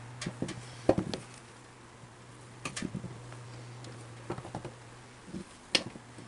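Scattered small clicks and knocks of tools and metal parts being handled during disassembly of a small electric motor, the sharpest about a second in and again near the end, over a steady low hum.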